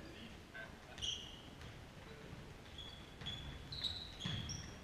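Players' shoes squeaking on a sports-hall floor as they run and turn: short, high chirps, coming thicker in the second half. A couple of dull thuds, the handball bouncing, about a second in and near the end.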